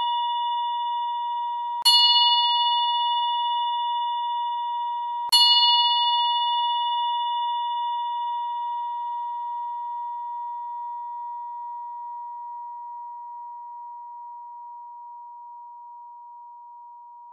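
Singing bowl struck twice, about two and five seconds in, over the ring of a strike just before. Each strike rings a bright, gently pulsing tone that fades slowly over many seconds, marking the end of the meditation.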